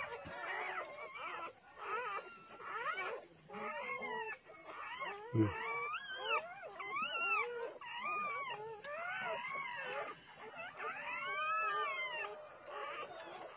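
Dog whining and whimpering in a run of high cries, each rising then falling in pitch, about two a second. There is a brief knock about five seconds in.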